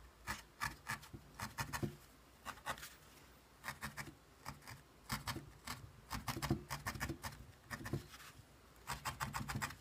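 Felting needle stabbing wool into a foam felting pad: runs of quick, sharp ticks with short pauses between them, as curled wool hair is needled onto a doll's head.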